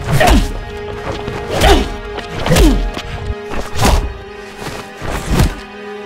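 Fight-scene punch and kick sound effects over background music: five hard hits about a second apart, each a sound sliding down in pitch that ends in a heavy low thud.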